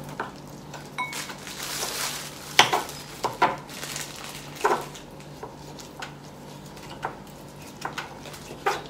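Kitchen knife cutting raw chicken on a wooden cutting board: irregular knocks of the blade striking the board, several of them sharp and loud, over a faint low steady hum.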